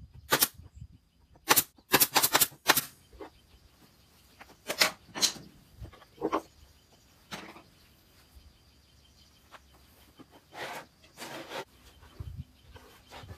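Irregular sharp knocks and clicks from an empty wooden subwoofer cabinet and a wooden block being handled on it, with a quick cluster of several about two seconds in.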